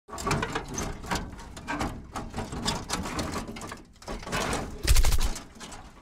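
Channel logo intro sound effect: a run of choppy, glitchy crackles and stutters, ending in a loud deep bass hit about five seconds in that fades away.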